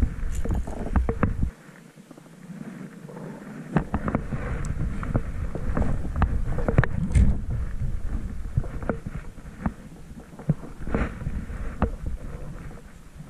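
Wind buffeting a body-worn camera's microphone as a low rumble, with scattered clicks and knocks from handling a spinning rod and reel.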